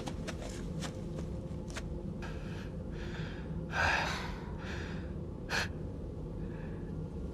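A person gasping and breathing hard in several short breaths, the strongest about four seconds in, over a low steady hum.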